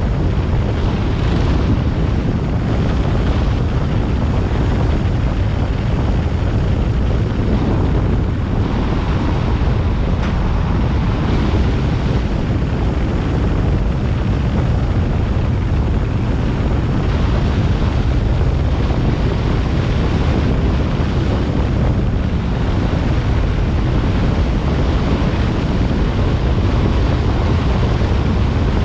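Steady wind buffeting the microphone over the rumble of a moving road vehicle, heaviest in the deep lows.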